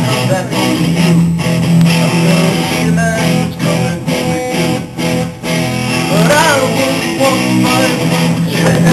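Rock-style music led by guitar, strummed and plucked, over a steady low held note.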